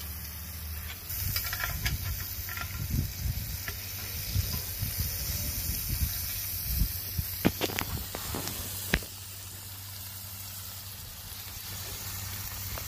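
Top round steaks sizzling in a hot cast iron skillet over a wood fire, a steady hiss. A few sharp clicks come about two-thirds of the way through, and the sizzle is quieter after that.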